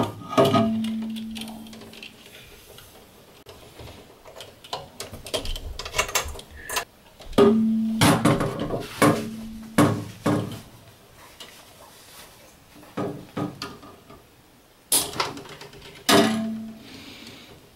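Hands pulling an electrical wire through plastic wiring duct in a control panel: irregular clicks, knocks and rubbing as the wire is fed and snapped into place. Three times a low, steady tone sounds for a second or two.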